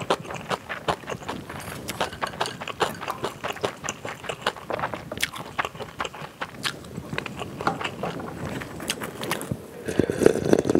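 Close-miked eating sounds of spicy instant ramen: chewing and slurping noodles, with many small wet clicks and light scrapes of the utensil in the bowl. Near the end comes a louder stretch of sipping broth straight from the bowl.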